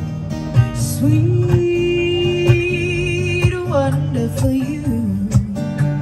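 Live acoustic duo of two strummed acoustic guitars under a woman's lead vocal. About a second in she holds one long note with vibrato, then steps down through several shorter notes.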